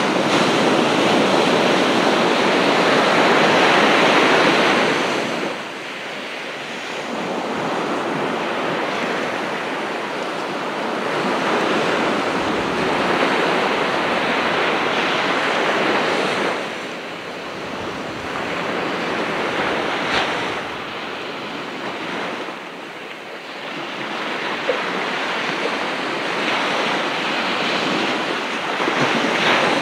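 Ocean surf: waves breaking and washing up the shore, the rush swelling and dropping back every several seconds. It is loudest in the first five seconds.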